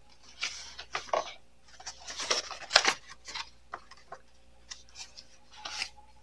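Paper and small items being handled: several short, rough rustling and scraping bursts, the loudest a little before the middle.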